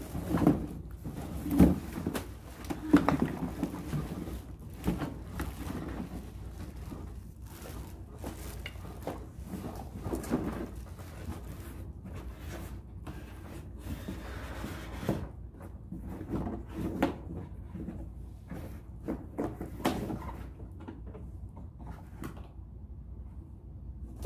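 Knocks and clunks of a vacuum cleaner and its parts being handled and fitted together, the loudest in the first few seconds.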